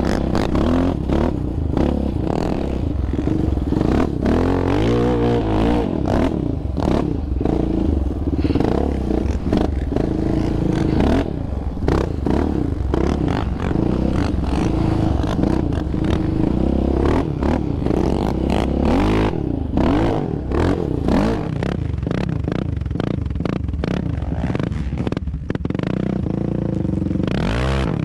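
Single-cylinder engine of a 2019 Yamaha Raptor 700R sport quad, heard from on board while riding, revving up and dropping back again and again as the throttle is worked. Bumps and rattles from the machine jolting over rough sand come through as well.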